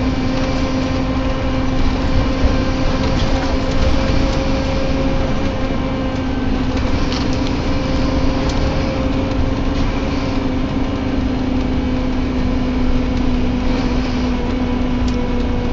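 Scania K230UB Omnilink bus heard from inside the saloon on the move: engine and road rumble under a steady groaning drone that holds one pitch and sinks slightly near the end. A few light rattles are heard over it.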